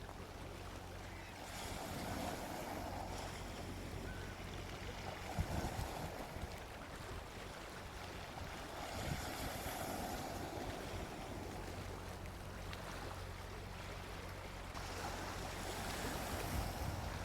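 Gentle sea waves washing onto a beach. The hiss of surf swells and recedes about every six to seven seconds over a steady low rumble.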